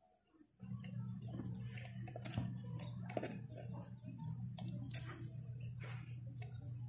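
Soft, sticky clicks and ticks of a small tool working stingless-bee honey pots loose from the hive box, over a steady low hum that comes in about half a second in.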